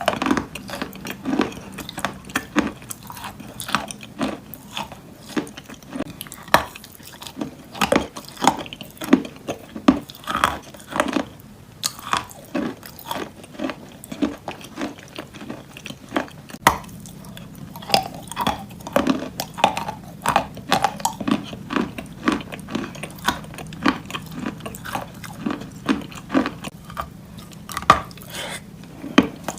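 Wet chalk coated in clay paste being bitten and chewed close to the microphone: a continuous, irregular series of sharp crunches mixed with softer wet chewing.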